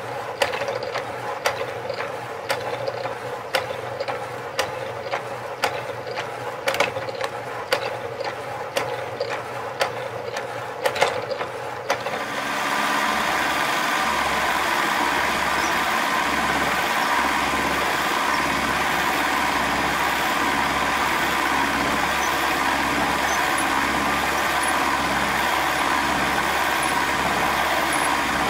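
A power hacksaw cutting through an aluminium bar, with a regular click on each stroke of the blade. About twelve seconds in, this gives way to the steady running and cutting noise of an end mill machining an aluminium block on a milling machine.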